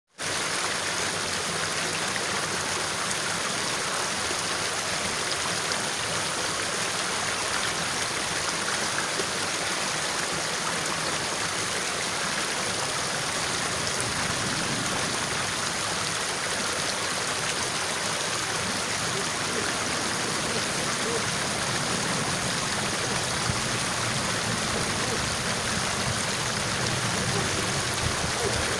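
Water rushing steadily along a narrow, fast-flowing irrigation ditch.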